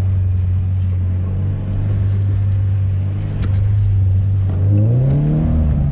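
Car engine held at steady revs, then revved up about four and a half seconds in and dropping back.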